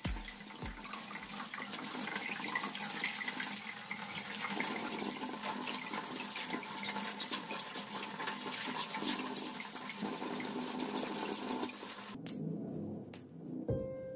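Water running from a tap and splashing into a sink as fresh garlic leaves are rinsed under it by hand. The running water cuts off about twelve seconds in.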